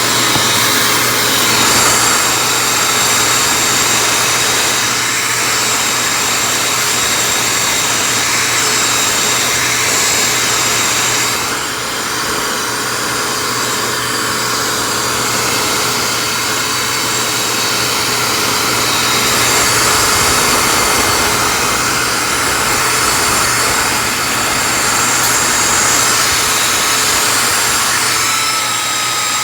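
Shop-Vac 1.5-gallon wet/dry vacuum running steadily with a high motor whine, its crevice tool sucking hair out of car carpet. The level dips briefly near the middle.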